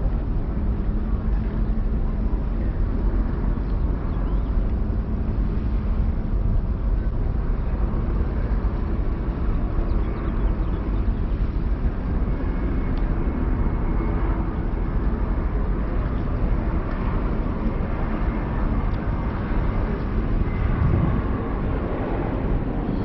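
Passenger ferry's engines running steadily under way, a constant low drone.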